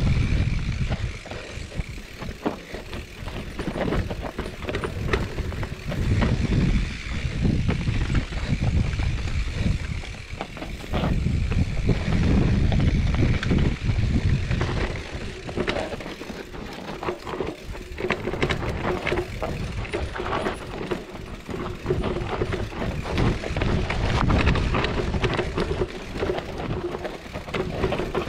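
Mountain bike descending a dirt singletrack: tyres rolling over the dirt, with the bike rattling and clicking over roots and rocks and surges of low rumble.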